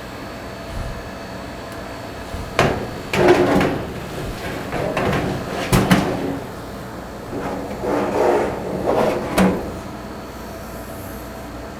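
Dryer drum being lifted and worked into a Samsung electric dryer's sheet-metal cabinet: a series of irregular knocks and scrapes of metal, some ringing briefly.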